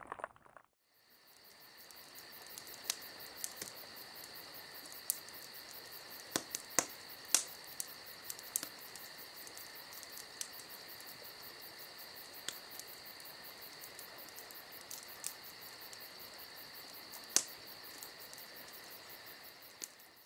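A steady chorus of crickets chirping, fading in about a second in and fading out at the end, with a few sharper clicks scattered through it.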